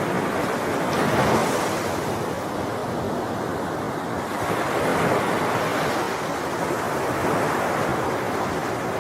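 Sea waves breaking and washing onto a shore, a steady surf with swells a second in and again around the middle and near the end.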